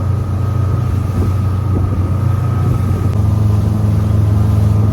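Motorboat engine running steadily under way, a low hum whose note rises a little about three seconds in.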